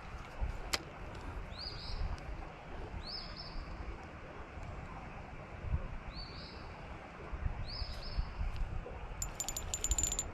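A bird repeating a short rising chirp every second or two over a low rumble. Near the end comes a quick run of sharp clicks.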